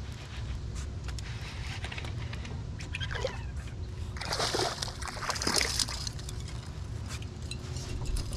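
A small smallmouth bass splashing at the water's surface as it is reeled in and lifted out, with a few bursts of splashing about four to six seconds in. A steady low rumble runs underneath.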